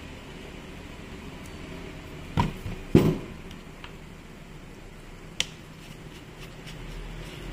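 Tool handling on a workbench during disassembly of an unpowered angle grinder: two loud knocks about two and a half and three seconds in, a sharp click about five and a half seconds in, then light ticks of a screwdriver working in a screw hole in the housing.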